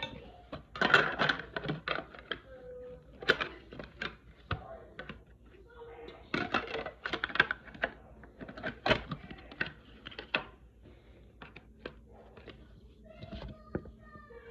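Hard plastic toy pieces being handled and fitted together: irregular sharp clicks and short clattery rustles, in bunches about a second in, around six to eight seconds in, and near the end.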